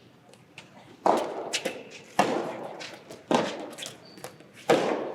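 A soft tennis rally: four sharp racket strikes on the rubber ball, each a little over a second apart, with smaller ball-bounce clicks between them, echoing in a large hall.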